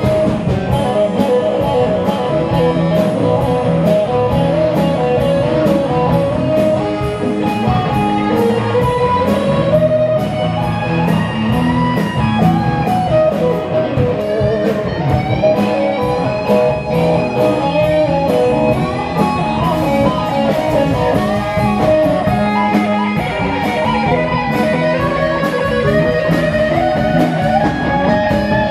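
Live band of electric guitars, bass guitar and drums playing an instrumental passage over a steady beat.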